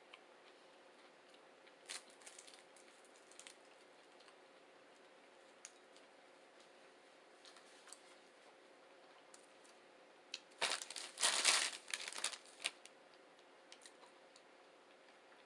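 Faint room tone with a few small clicks, then a burst of crinkling, crunching noise about ten and a half seconds in, lasting about two seconds, from someone eating takeout veggie rolls.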